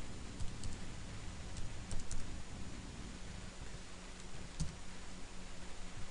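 A few scattered keystrokes on a computer keyboard as numbers are typed in, over a steady low background hum.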